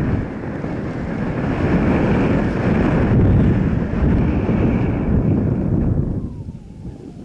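Wind rumbling on the microphone, with a low noise underneath like a running vehicle, easing off about six seconds in.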